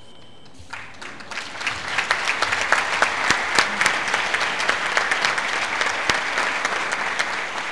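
Audience applause, many hands clapping together. It begins about a second in after a short hush and thins a little toward the end.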